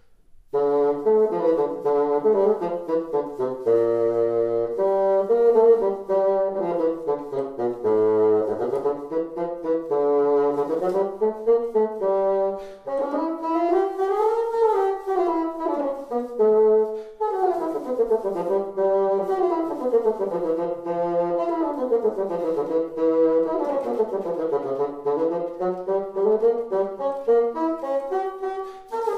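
A V. Kohlert Sons wooden bassoon, built to low pitch, played solo, starting about half a second in. First come stepped, held notes reaching down into the low register, then quick runs climbing and falling through the scale.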